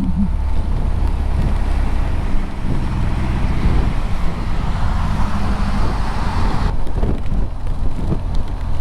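Motorcycle being ridden on a wet road in heavy rain: a steady low rumble of wind on the microphone, with engine and road noise. A rushing hiss builds through the middle and cuts off abruptly about two-thirds of the way through.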